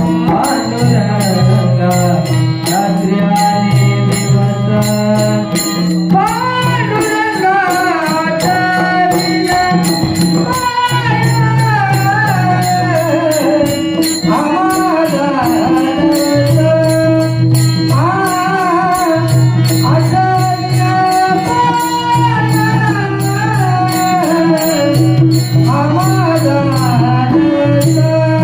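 Male voice singing a Marathi devotional harijagar melody in long gliding phrases, over a harmonium drone, with a fast, even beat of light percussion.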